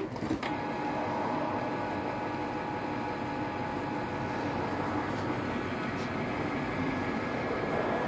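Canon PIXMA G3420 ink tank printer running its ink flush cycle: its internal motors start about half a second in and run steadily with a whir and a faint whine.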